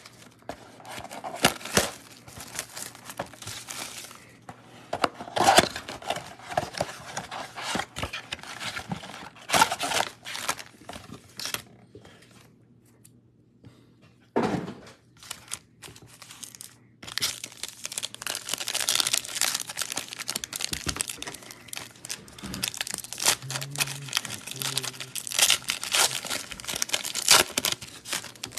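Cardboard trading-card blaster box being torn open by hand, then wrapped card packs crinkling and ripping open. The rustling comes in bursts, with a quieter pause near the middle broken by one sharp crack.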